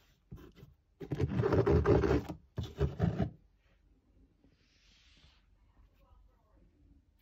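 Rubbing and scraping of a hand against a fabric-covered storage box and the floor, in three bursts: a short one, a loud one about a second in lasting a second and a half, and a third shortly after.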